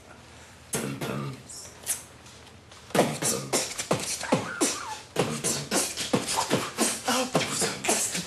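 A person beatboxing: after a few scattered mouth sounds, a fast rhythmic run of mouth-made kick and snare hits, several a second, starts about three seconds in.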